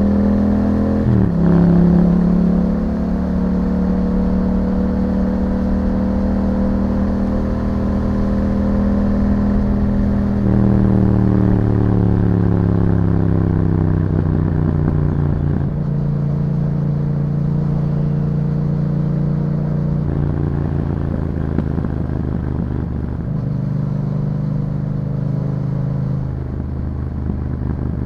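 Yamaha MT-07's parallel-twin engine running through an Akrapovic exhaust while being ridden. The note changes abruptly several times, and its pitch falls gradually between about 10 and 15 seconds in.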